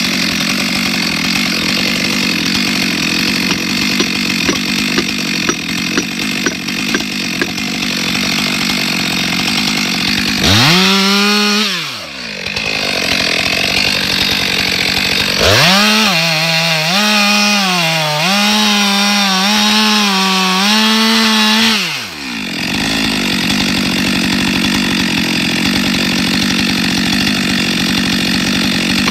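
Stihl MS 462 C two-stroke chainsaw cutting through a log at full throttle. About ten seconds in, the saw comes out of the wood and revs unloaded for roughly ten seconds, its pitch rising, falling and wavering. Then it goes back into the cut.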